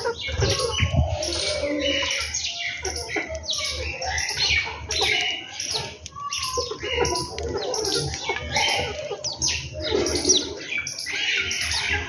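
A flock of house sparrows chirping continuously in dense, overlapping calls, with lower clucking from chickens mixed in.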